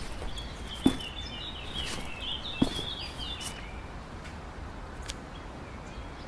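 Small birds chirping over a steady outdoor background hum, the chirping fading after about three seconds. Two sharp taps stand out, about a second in and again near the middle.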